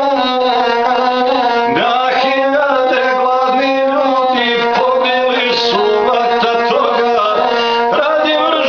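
A man singing an epic song to his own bowed gusle, the single-string fiddle sounding continuously under his voice. The sung line wavers and bends in ornaments without a break.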